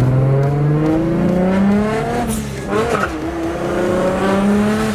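1JZ inline-six engine in a Lexus IS300 accelerating hard: the engine note climbs, drops sharply about two and a half seconds in as a gear change, then climbs again.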